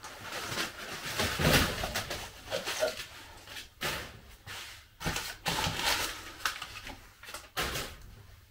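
A cardboard box being opened and its packaging handled: irregular rustling and scraping in uneven bursts.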